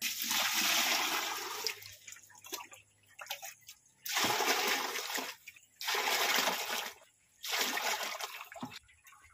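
Water poured from a can into a metal bucket, splashing, in four pours of one to two seconds each with short pauses between.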